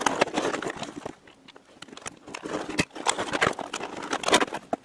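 Cardboard box and clear plastic packaging tray being handled and pulled open: irregular rustling, scraping and knocking, with a quieter lull between about one and two seconds in.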